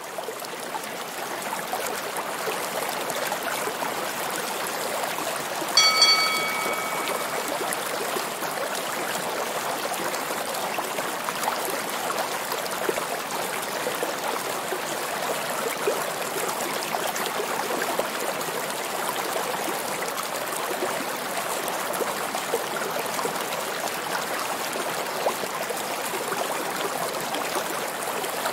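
Steady underwater hiss with faint fine crackling, as heard through a camera underwater among swimming dolphins. About six seconds in, a short flat tone with several overtones sounds once for about a second and a half.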